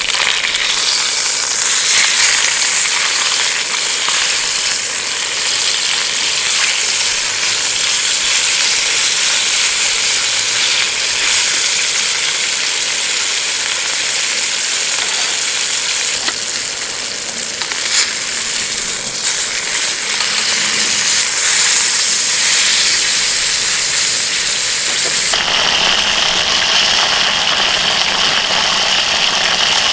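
A block of beef searing in hot oil in a frying pan, sizzling steadily and loudly. About four seconds before the end the sizzle changes abruptly to a duller hiss.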